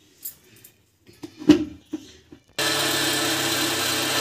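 A few knocks and clicks, one sharp, then an electric kitchen mixer-grinder switches on about two and a half seconds in and runs steadily at full speed, blending cake batter in its jar.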